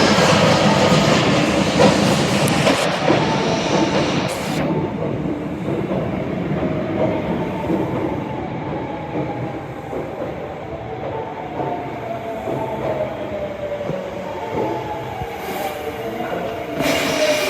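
Osaka Metro Tanimachi Line subway train running, with wheel-on-rail noise and a whining tone that slides down in pitch near the end as the train slows.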